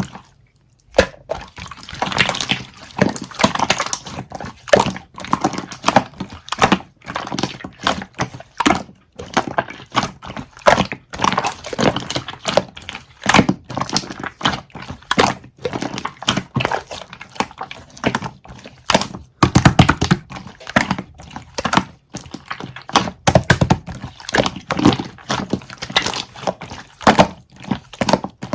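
Close-up eating of konjac jelly: a continuous run of short, irregular wet squelches, smacks and clicks.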